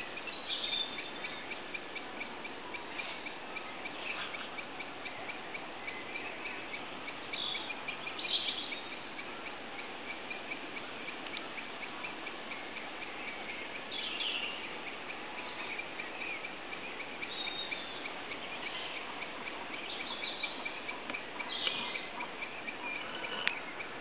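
Small birds chirping now and then over a steady outdoor hiss, with a faint, even ticking at about three a second. A single sharp click near the end.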